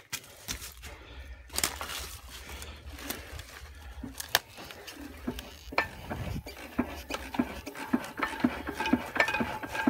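Imperial Super Diesel single-cylinder hit-and-miss engine being turned over by hand at its flywheels to build speed for a start, without firing. It gives a rhythmic metallic clicking and clanking that comes faster from about six seconds in as the flywheels speed up.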